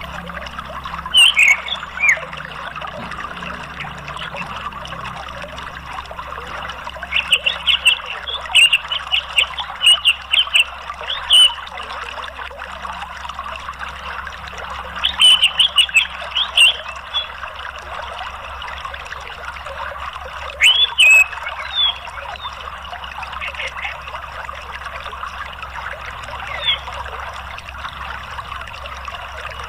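Steady running water, like a stream or small waterfall, over a low hum. Bursts of short, high chirping calls come every few seconds, thickest about seven to twelve seconds in and again around fifteen to seventeen seconds.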